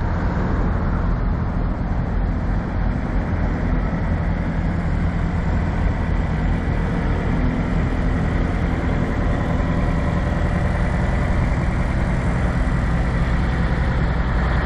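Kenworth semi truck's diesel engine running at a steady idle, its low drone holding at one pitch.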